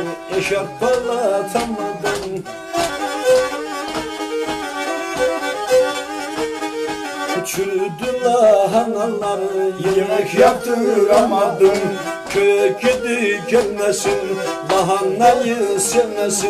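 Black Sea kemençe, a small upright three-string bowed fiddle, played solo in a lively folk tune of quick, short bowed notes.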